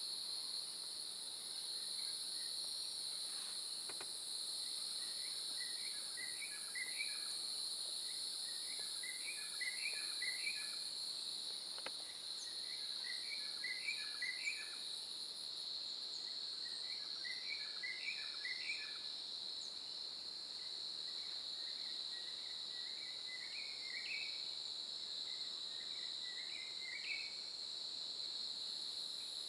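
Steady, cricket-like chorus of insects, with a short call of quick rising notes repeating every few seconds.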